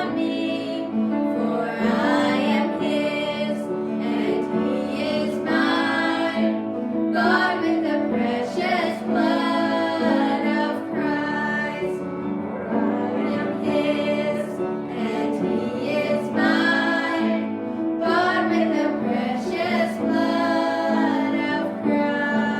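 Female voice singing a sacred song with vibrato over steady instrumental accompaniment, continuous throughout.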